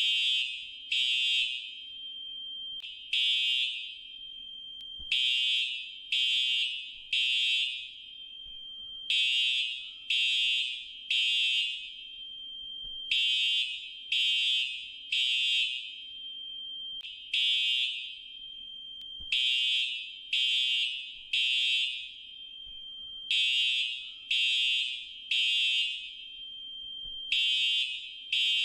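Fire alarm sounding a high-pitched beep, mostly in groups of three that repeat about every four seconds: the temporal-three evacuation signal.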